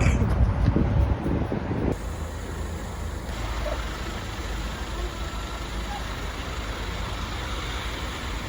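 Steady road noise and engine hum of a moving car, a low rumble with a hiss over it. The sound changes abruptly about two seconds in, becoming quieter and more even.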